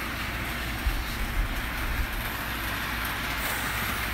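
Hornby model A4 locomotive Silver Link running on the layout's track with its coaches: a steady whir of motor and wheels on the rails, with a couple of light clicks about a second in.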